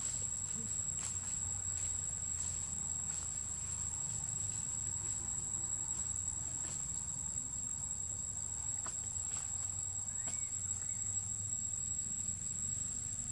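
Steady, high-pitched insect drone, one unbroken tone, with a few faint clicks over it.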